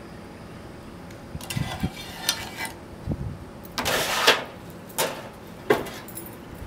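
Soapstone marker scraping across a concrete roof tile in a few strokes while cut lines are drawn, the longest stroke about four seconds in and two short ones near the end.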